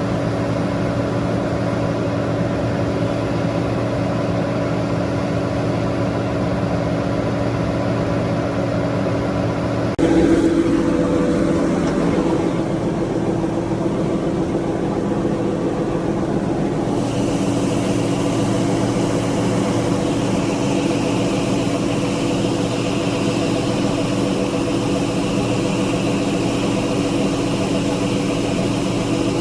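Diesel engine of harvest machinery (combine or tractor) running steadily under load. The sound changes abruptly about ten seconds in, briefly louder, and shifts again a few seconds later.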